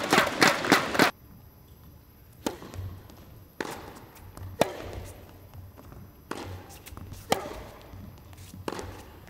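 Tennis rally on an indoor hard court: sharp pops of the ball being struck by rackets and bouncing, roughly once a second, in a large hall. It opens with about a second of louder, denser sound that stops abruptly.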